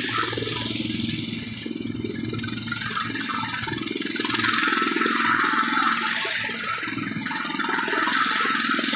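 Helicopter running, a steady mechanical drone with a fast pulsing from the rotor, swelling a little in the middle and again near the end.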